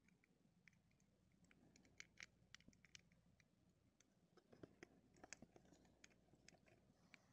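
Near silence with scattered faint clicks and scrapes of a plastic Teenage Mutant Ninja Turtles Mutations Leonardo action figure being handled, as its arms are folded in and the shell pressed down to turn it into a baby turtle.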